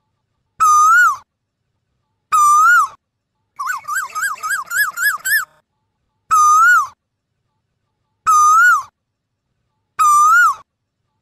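Male Asian koel calling: a loud whistled note that rises then drops, repeated about every two seconds, five times. About four seconds in comes a fast run of shorter rising notes.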